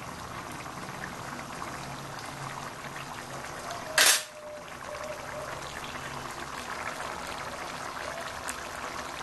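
Pot of curry simmering on the stove, a steady bubbling hiss. About four seconds in, a brief loud bump or rustle cuts in.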